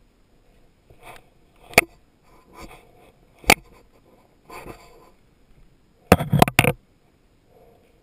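Paintball markers firing: two single sharp pops a little under two seconds apart, then a quick string of about five louder pops near the end, with faint rustling between them.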